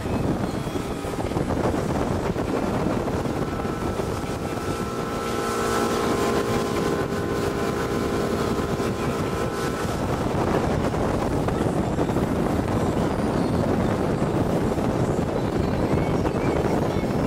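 A small passenger boat's motor running steadily under way, mixed with wind buffeting the microphone. For several seconds in the middle a steady hum of tones stands out above the noise.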